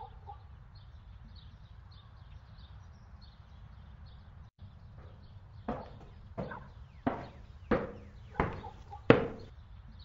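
Faint birds chirping over quiet room tone, then six sharp taps about two-thirds of a second apart, mostly growing louder, the last the loudest.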